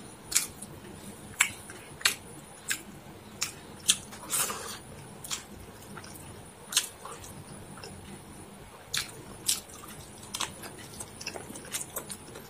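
Close-miked eating of chicken biryani by hand: irregular wet smacks and clicks of chewing, a dozen or so sharp ones, with a longer noisy smack about four seconds in.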